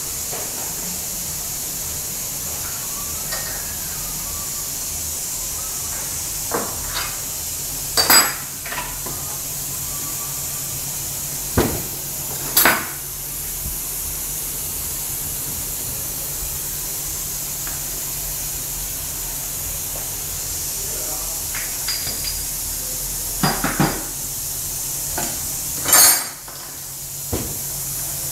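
Scattered sharp metallic clinks and knocks, a handful of separate strikes with the loudest about eight seconds in and again near the end, as metal parts are handled, over a steady hiss and low hum.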